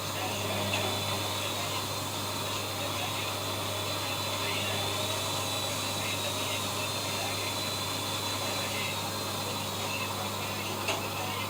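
ELIN WA 14 M washing machine running steadily: an even motor hum with a faint, slightly wavering high whine. There is a light click about a second in and another near the end.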